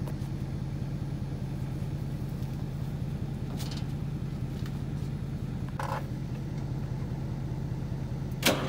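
Massey Ferguson loader tractor's engine idling steadily with an even low beat, running smoothly. Two brief knocks sound about three and a half and six seconds in.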